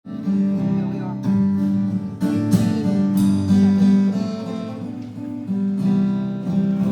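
Acoustic guitar strumming chords live, a fresh chord struck about every second, as a song begins.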